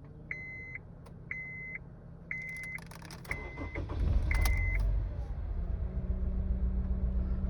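A car's warning chime beeps about once a second, six times, then the 1.8-litre four-cylinder engine of a Honda Civic FD cranks and starts about four seconds in and settles into a steady idle. The engine is misfiring and running as if on three cylinders, which the owner traces to a faulty ignition coil.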